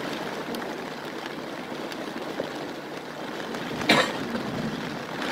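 Heavy monsoon rain pouring down in a steady hiss, with one brief sharp noise about four seconds in.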